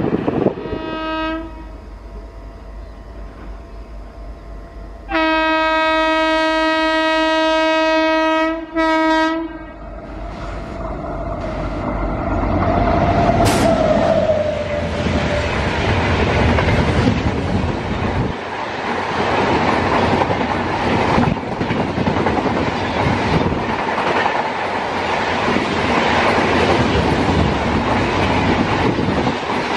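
Electric locomotive horn: a short toot, then one long steady blast of about three seconds and a brief toot. The train then runs through at speed, its wheels clattering loudly over the rail joints as the coaches pass.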